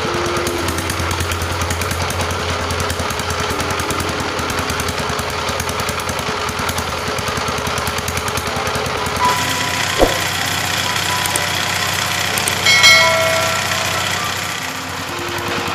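Single-cylinder Chinese power tiller diesel engine running steadily with a rapid, even knock, freshly reassembled with its tappets adjusted. A short sharp click comes about two-thirds of the way through, followed shortly by a brief bright ringing chime.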